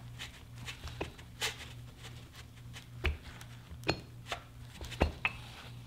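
Scattered clicks and knocks of a rusty FD RX-7 rear brake caliper and its piston being gripped by hand through a paper towel and twisted to work a stuck centre piece loose, the loudest knocks about three and five seconds in, over a steady low hum.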